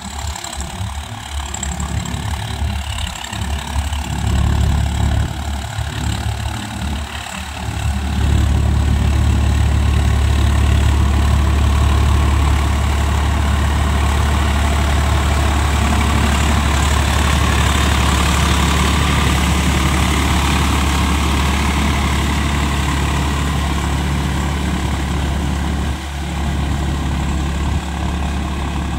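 Swaraj 855 FE tractor's three-cylinder diesel engine running steadily under load while it pulls a rotavator through wet, muddy soil. It grows much louder about eight seconds in as the tractor comes close, then eases slightly as it moves away.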